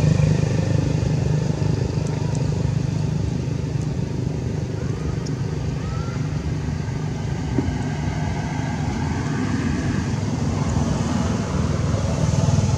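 Steady low rumble of a motor vehicle engine running, with faint short chirps now and then.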